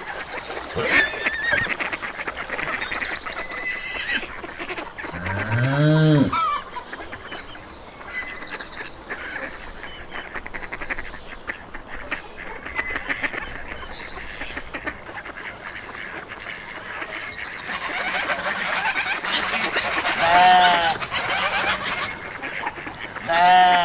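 Farmyard animals calling over a busy, continuous chatter of fowl. About five seconds in comes one loud, deeper call that rises and falls, and two shorter calls stand out near the end.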